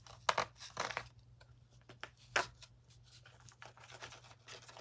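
Hands handling small plastic objects, making a few short crackles and clicks with pauses between. The loudest comes about two and a half seconds in.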